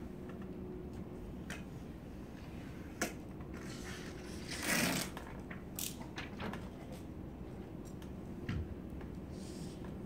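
Scattered light clicks and scrapes of a hand tool working the top edge of wet-applied vinyl window film on glass, with one louder scraping rustle about five seconds in, over a steady low hum.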